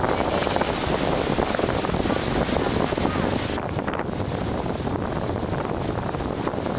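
Wind buffeting the microphone aboard a motorboat underway, over the rush of the hull through the water. A little over halfway it changes abruptly to a softer wind and water noise with less hiss.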